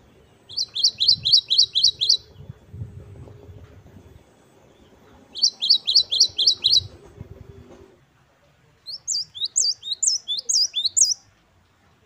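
Great tit (the grey-backed 'gelatik batu' form) singing three loud phrases. The first two are fast runs of six or seven repeated notes. The third, near the end, is a higher, more varied phrase of paired notes.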